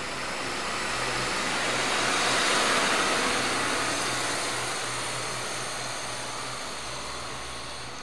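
Articulated bi-modal tram pulling away from the stop: a steady whooshing run that swells about two to three seconds in, then slowly fades as it draws away, over a low steady hum.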